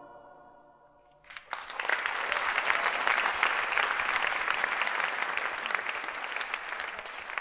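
The song's last held notes fade out. About a second in, an audience breaks into steady applause, dense clapping that runs on.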